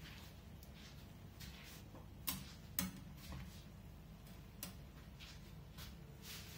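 Slotted metal spoon clinking and scraping against a stainless steel frying pan while stirring a buttery lobster and vegetable mix, in irregular light clicks with two sharper clinks a little past two seconds in.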